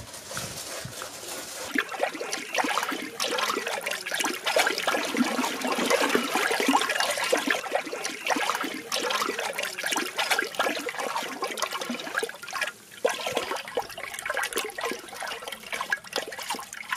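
Water sloshing and splashing hard as it is churned in a round tub, building up about a second and a half in, with a brief lull about three-quarters of the way through.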